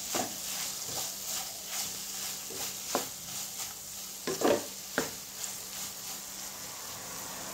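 Wooden spatula stirring and turning soya chunks masala in a nonstick kadai, scraping against the pan over a light frying sizzle, with a few louder scrapes about three, four and a half and five seconds in.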